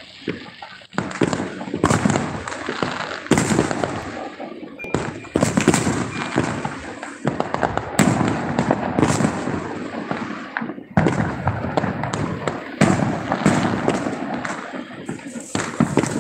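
Many fireworks going off at once: a dense, continuous run of overlapping bangs, pops and crackle, with a brief lull about eleven seconds in.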